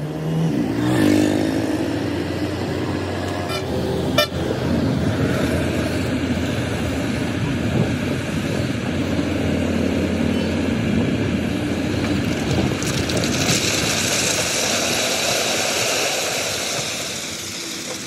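Diesel dump truck running, its pitch shifting near the start as it revs, with a sharp knock about four seconds in. From about thirteen seconds a hissing rush joins in as the load pours out of the raised tipper bed, fading away near the end.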